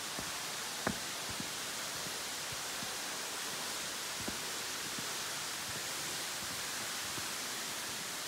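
Steady, even splashing hiss of a tall, thin waterfall pouring off a rock overhang onto the rocks below. A couple of faint clicks come through, about a second in and again about four seconds in.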